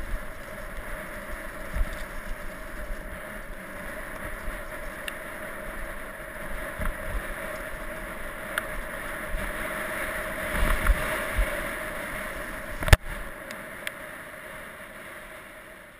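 Mountain bike coming down a leaf-covered forest trail: a steady rush of tyre noise and wind on the microphone, broken by knocks and rattles from the bike over bumps, with one sharp knock about 13 seconds in. The noise fades out at the very end.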